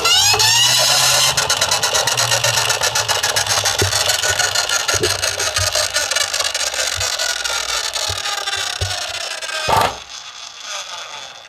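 An emergency-vehicle siren rises in pitch over the first second and then holds a steady wail, over a dense, fast rattle of miniature toy cars rolling down a slope. A sharp clatter comes just before ten seconds in, after which the sound fades.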